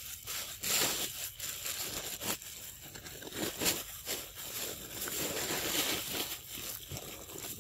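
Irregular crinkling and rustling noise, coming and going unevenly with short gaps.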